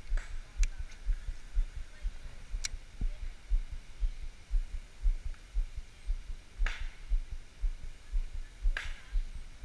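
Low, irregular thumping, about three thumps a second, with a few sharp clicks now and then.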